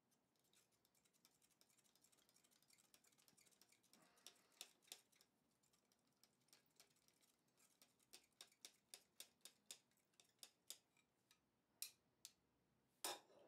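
Faint, sharp metallic clicks of small forged steel tongs being worked open and shut, the arms and jaws clicking about two or three times a second as the joint is loosened so the jaws close easily. A few louder clicks come near the end.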